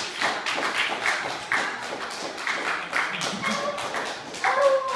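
A group of people clapping and calling out in excitement as a surprise is sprung, with music playing.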